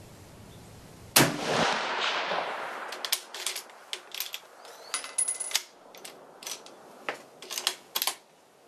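A single shot from a Mosin-Nagant bolt-action rifle (7.62×54mmR) about a second in, the report dying away over about two seconds. It is followed by the bolt being worked: a string of sharp metallic clacks and clicks as the bolt is lifted, drawn back and closed, ending shortly before the end.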